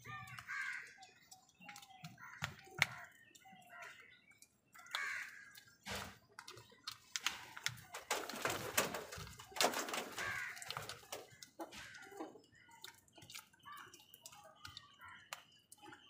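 House crows calling while they feed, with scattered harsh caws, many sharp taps, and a louder noisy flurry about eight to ten seconds in.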